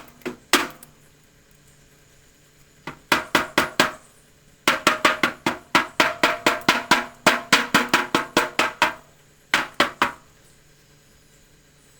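Hammer blows on the sheet-steel hood of a VW Beetle, working out a dent: quick runs of sharp, ringing strikes, about four or five a second, in bursts with short pauses, the longest run in the middle.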